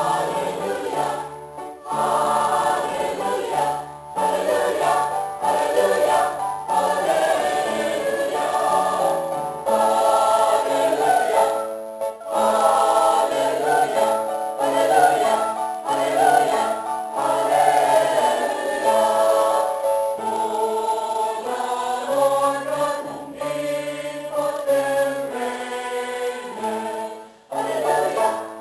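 Church choir singing a hallelujah, with one alto voice standing out closest to the microphone. The singing runs in phrases with brief pauses every few seconds.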